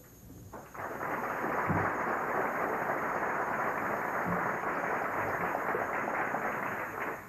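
Audience applauding. It builds up about a second in, holds steady and stops just before the end.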